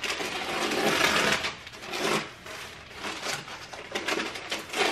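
Hands rustling and unwrapping bundled clothing packaging inside a cardboard box: a long stretch of rustling at the start, then shorter rustles every second or so.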